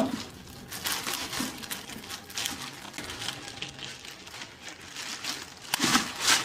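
Packaging crinkling and rustling in irregular bursts as ink bottles are taken out of the box, with a louder rustle near the end.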